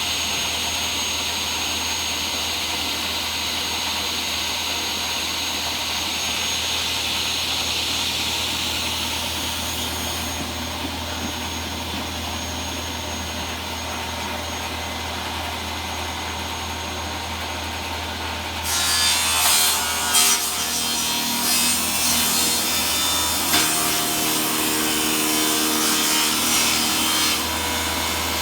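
Table saw running steadily. About two-thirds of the way in it bites into a wooden beehive super, and the sound turns louder and rougher for several seconds as the blade cuts out a damaged strip, then drops back to the saw running free.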